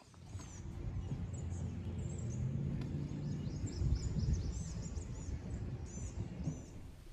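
Birds chirping, a long run of high, quick chirps, over a low rumble that swells and fades.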